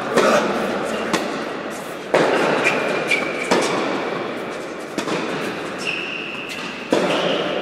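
Tennis rally: racquet hits and ball bounces, about one every second or two, each sharp crack ringing on in the reverberant hall. High shoe squeaks on the hard court come about 3 s in and again near the end.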